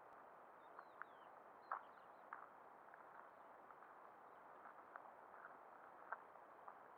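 Near silence: faint outdoor background hiss with a scatter of short soft clicks and a few faint high chirps in the first two seconds.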